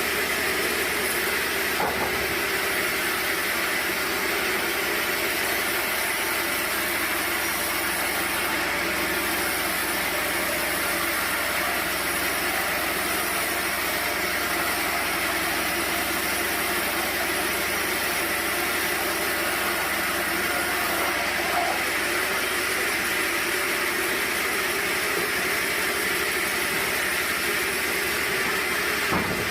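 Sawmill machinery running steadily, an even mechanical noise with a few held tones and no marked change in level.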